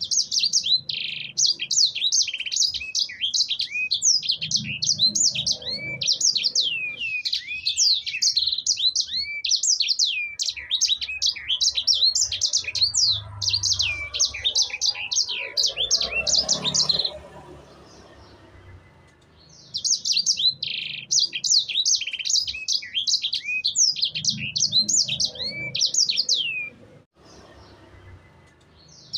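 A sanger songbird singing in long, fast runs of high chirps and sweeping whistled notes, one bout lasting about seventeen seconds, then after a short pause a second bout of about seven seconds.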